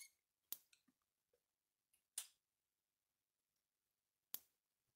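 Gallagher S50 solar fence energizer board firing its output pulse: three faint clicks about two seconds apart. This is the slowed night-time pulse rate, set off by the board's light sensor being in the dark.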